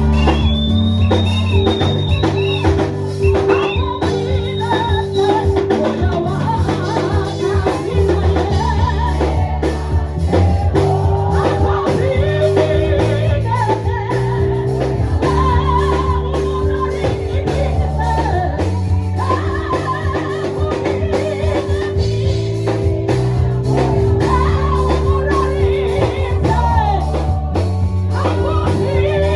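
Background music: a song with a singing voice over a steady bass line and drums.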